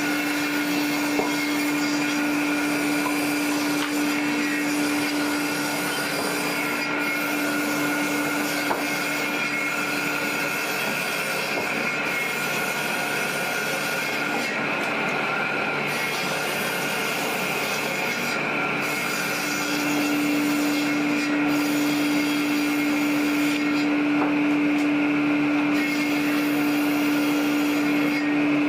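Sawmill machinery running steadily, with a constant hum and a higher steady whine. The hum weakens in the middle and comes back strongly about two-thirds of the way through.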